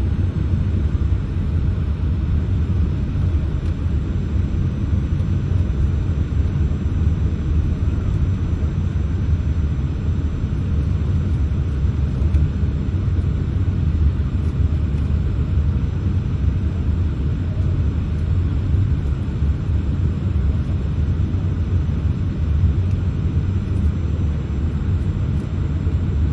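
Steady low rumble inside the cabin of a Boeing 787-8 airliner taxiing with its engines at idle.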